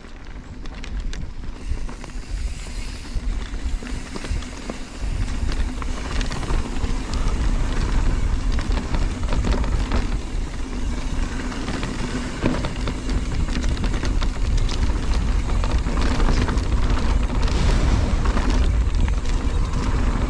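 Wind buffeting the camera microphone and knobby mountain-bike tyres rolling over a dirt trail at speed, with the rattle and clatter of the bike over bumps. The rumble grows louder about five seconds in as the bike speeds up downhill.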